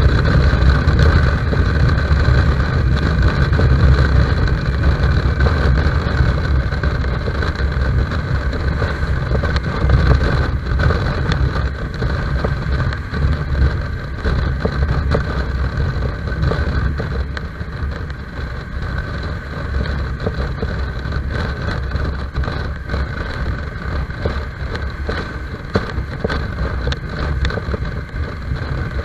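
Motorcycle engine running at road speed with wind rush on the microphone, slightly quieter in the second half.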